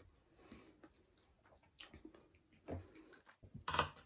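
Eating sounds: chewing, and plastic forks clicking and scraping against plates in short scattered ticks, with a louder clatter near the end.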